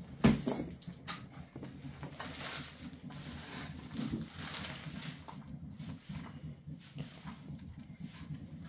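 Short straw hand broom sweeping grit and debris into a dustpan on a concrete floor, in repeated brushy strokes. A sharp knock comes about a quarter second in. A low steady hum runs underneath.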